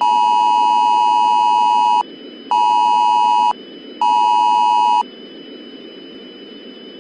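Emergency-alert attention tone: a loud, steady two-pitch electronic beep sounded three times, once for about two seconds and then twice for about a second, half a second apart. A steady static hiss and a faint high whine sit underneath throughout.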